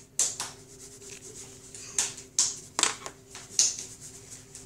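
Handling noise from the camera being moved and held: five or six short scraping rubs and knocks against the microphone, over a faint steady hum.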